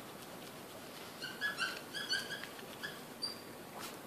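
Dry-erase marker squeaking on a whiteboard in a run of short, high squeaks while writing, starting about a second in. A single sharp tap comes near the end.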